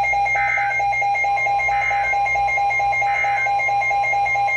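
A steady, rapidly pulsing alarm beep, over which three short warbling bursts of EAS digital header code sound about a second apart.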